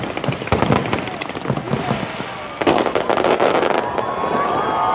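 Fireworks going off in a rapid series of sharp bangs and cracks, then a dense crackling burst a little past halfway.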